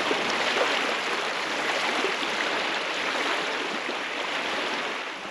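Small waves washing against a lake shore: a steady rushing wash that eases slightly near the end.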